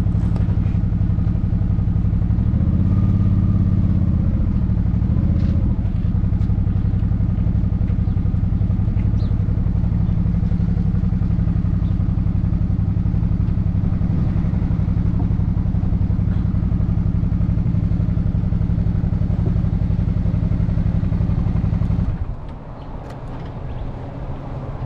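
Motorcycle engine running steadily under way, with a brief rise in engine note a few seconds in. About 22 seconds in, the engine sound drops sharply in level and pitch and carries on more quietly.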